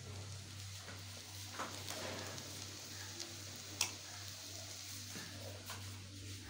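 Kitchen handling sounds: a few light clicks and knocks as tea cups and a plastic tea strainer are handled, the loudest a sharp click about four seconds in, over a steady low hum.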